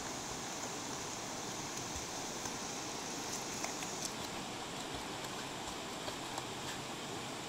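Steady rush of water spilling over a small weir, with faint splashes from a dog swimming and paddling.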